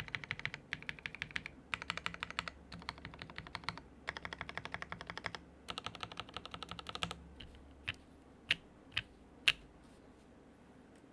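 Typing on a Jaguar custom mechanical keyboard with lubed and filmed NovelKeys Cream linear switches in a half-POM top-mount plate, under GMK keycaps. Fast runs of keystrokes come in bursts, then about seven seconds in give way to five single, spaced key presses.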